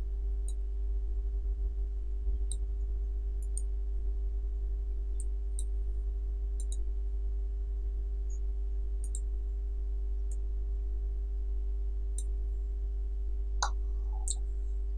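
Computer mouse clicks, about a dozen, single or in quick pairs, as text is marked and selected in a command-prompt window. Under them runs a steady low electrical hum.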